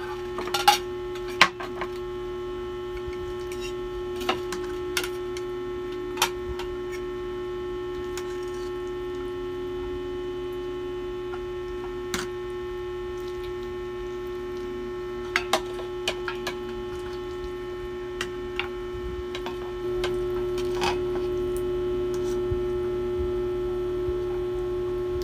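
Forks and spoons clicking and scraping against plates and a metal serving platter as noodles are served and eaten, about a dozen scattered clicks, over a steady electrical hum that gets a little louder about twenty seconds in.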